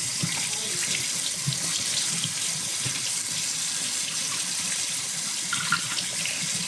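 Kitchen faucet running steadily into a stainless steel sink, the stream splashing over a giant puffball mushroom as it is turned and rinsed by hand.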